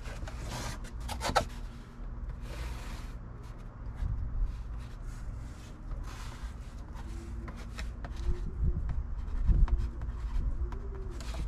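Cardboard being handled, rubbed and scraped against a car dashboard, with pencil marks scratched on it and scattered small clicks, over a steady low hum.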